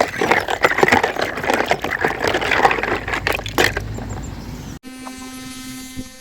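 Water bubbling and crackling for nearly five seconds, then an abrupt cut to a steady electric buzz.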